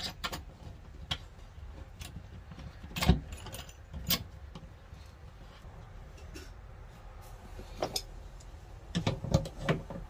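Small metal fittings clinking and knocking as the nut is put on and tightened behind a shower mixer: scattered sharp clicks, heavier knocks about three and four seconds in, and a quick cluster near the end.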